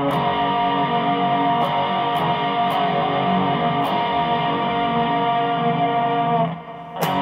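Stratocaster-style electric guitar strummed steadily, its chords ringing on. The playing stops about six and a half seconds in, then one last chord is struck near the end and left to ring out.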